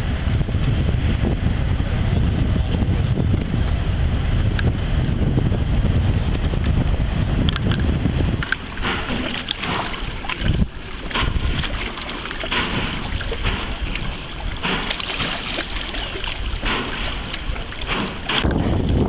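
A heavy low rumble of wind buffeting the microphone. About eight seconds in it drops away, leaving lake water lapping and splashing against shoreline rocks in irregular small splashes; the rumble comes back near the end.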